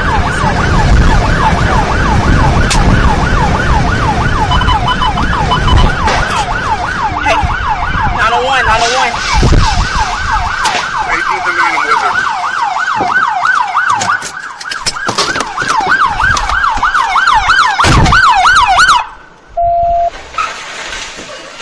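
Police car siren on a fast yelp, sweeping rapidly up and down about three times a second over engine and road noise. It cuts off suddenly near the end, followed by a short steady beep.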